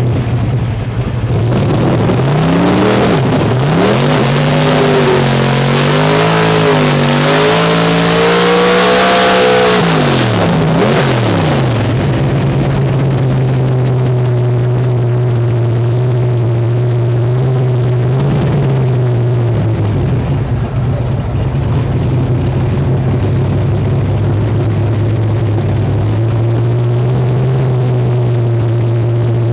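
Drag race car engine heard from inside the cockpit, revving up and down repeatedly for about ten seconds. It then settles into a steady, loud run at constant speed for the rest of the time.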